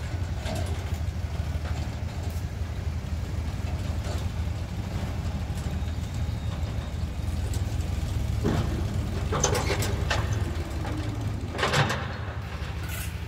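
Tractor diesel engine running steadily at low speed with a deep, even rumble. A few metallic clanks and rattles come in the last few seconds.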